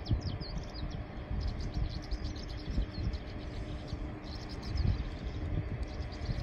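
Small birds chirping continuously in quick, high, downward-sweeping notes, over an irregular low rumble of wind buffeting the microphone.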